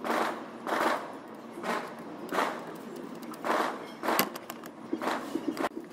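Ratchet wrench clicking in short, repeated strokes, about one stroke every three-quarters of a second, as the valve body bolts of a CVT are run down.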